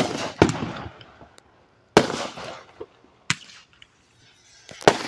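Aerial fireworks going off: five sharp bangs, the first two close together, then about one every second and a half. Each bang trails off in a fading hiss.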